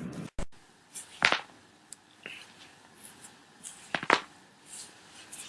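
Joints cracking: two sharp pops about three seconds apart, with a few fainter clicks between them.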